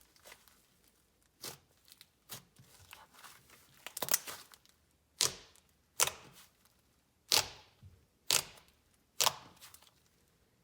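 Butter slime being squished and pressed by hand, giving a series of short, sharp wet pops and clicks. They come about once a second in the second half.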